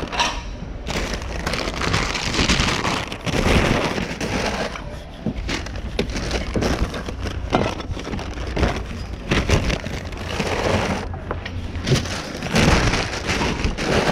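Goods clattering and rustling as someone rummages through a bin of mixed items, with a steady run of small knocks and clicks.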